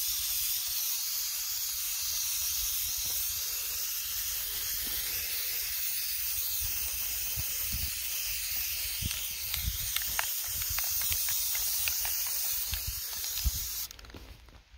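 Aerosol spray-paint can spraying marking paint in one long, steady hiss that cuts off near the end.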